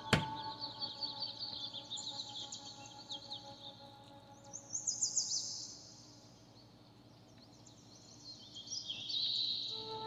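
Small birds chirping and twittering in rapid high runs, over soft sustained music tones that fade out about halfway through. A single sharp click right at the start.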